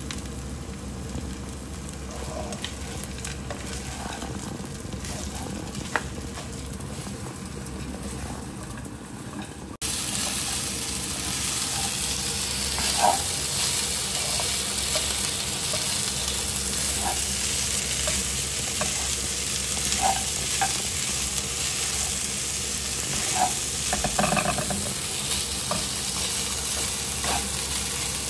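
Shrimp fried rice sizzling in a nonstick frying pan as it is stirred and tossed with plastic tongs, with occasional light scrapes and clicks of the tongs against the pan. The sizzle becomes much louder about ten seconds in.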